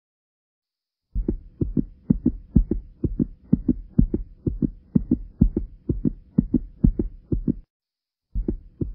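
Heartbeat-like low thumps at about three a second over a faint steady hum. They start about a second in, break off briefly near the end, and resume.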